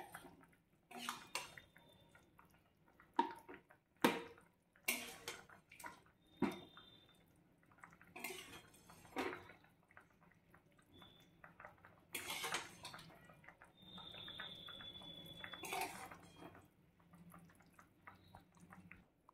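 Metal spatula scraping and clinking against a steel wok and a stainless-steel bowl as spinach-and-potato curry is spooned out, with soft wet plops of the curry landing. About a dozen short, faint strokes, some leaving a brief metallic ring.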